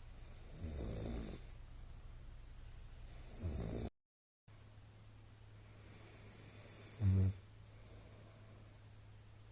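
A man snoring loudly in his sleep: three separate snores, about a second in, around three and a half seconds, and a short buzzing one about seven seconds in that is the loudest, over a steady low hum.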